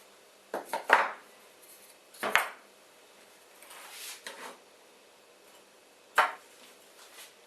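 Hard parts being handled and set down: clinks and knocks about a second in, again a little after two seconds and near six seconds, with a short scrape around four seconds.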